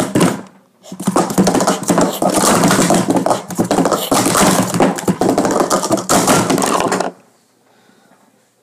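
Speed Stacks plastic sport-stacking cups clattering rapidly as they are upstacked and downstacked at speed through a timed cycle. A dense run of quick clicks and taps lasts about six seconds and stops abruptly.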